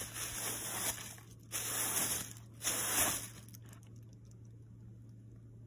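A broom with a plastic bag tied over its bristles sweeping across a hard floor into a plastic dustpan: a few crinkly brushing strokes over the first three seconds or so, then it stops.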